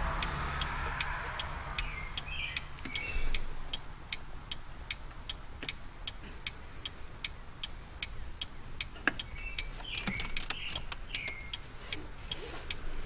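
Steady, even clicking, about two and a half ticks a second, with a few short high squeaks in between.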